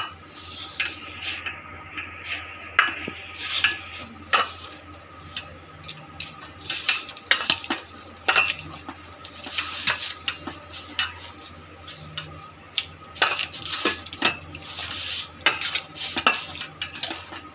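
Hands kneading a soft wheat-flour and semolina dough in a stainless steel bowl: irregular scraping, slapping and knocking of dough and fingers against the steel.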